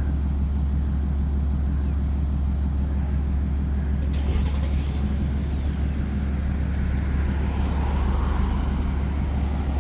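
Steady low rumble of idling vehicle engines, with a short air-brake hiss about four seconds in.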